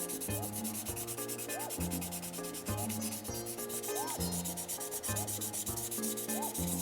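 Background music with a steady beat and shifting bass notes, over a steady rasping rub of a fine 6000-grit sanding pad worked across a painted plastic model hood.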